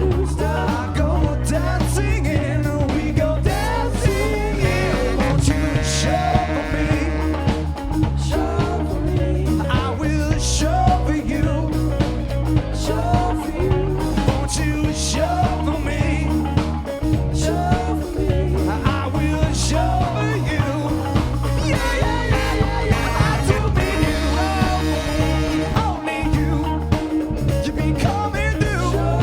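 Funk-rock band playing live, with a singer's voice over drums and a steady bass line.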